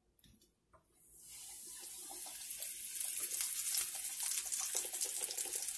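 Flour-coated chicken piece going into hot oil in a frying pan about a second in, setting off a sizzle that builds quickly and carries on steadily with dense crackling.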